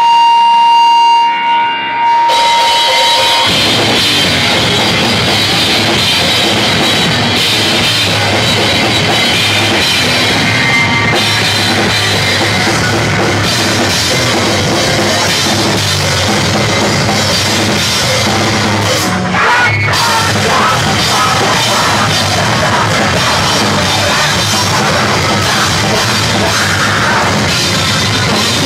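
Live hardcore band playing loud, with a drum kit and guitars. A single held high tone opens it, and the full band crashes in about two seconds in.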